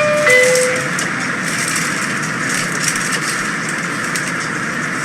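MBTA Red Line subway car: a two-note falling chime right at the start, then the steady rumble and hiss of the train running on the rails.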